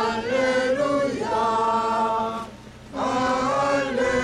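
A group of voices singing a funeral hymn in long, held notes, breaking off briefly a little past halfway and then starting again.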